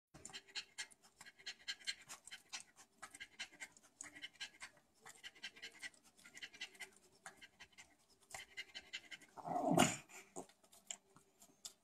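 Bulldog puppy breathing noisily in short, rapid, snuffly breaths, with one louder short sound from the puppy near the end.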